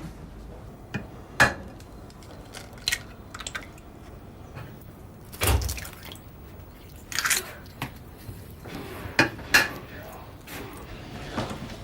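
Household kitchen clatter: dishes and cutlery knocking and clinking now and then, with a heavier thump about halfway through.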